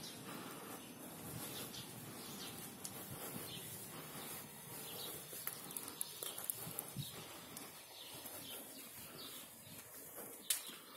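Faint bird chirps repeating over a quiet outdoor background, with one sharp click near the end.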